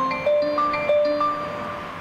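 A melody of bell-like chime notes, about three a second, each ringing and decaying. It fades out near the end, leaving a steady rushing hiss.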